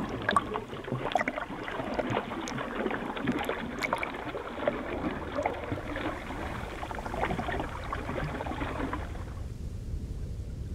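Underwater lake sound: bubbles gurgling and crackling with many small clicks. About nine seconds in it gives way to a low rumble of wind and lapping water at the surface.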